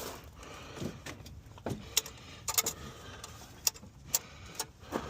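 Scattered light clicks and clinks, about seven over the few seconds, from hand tools and metal parts being handled during work on a car; no engine running.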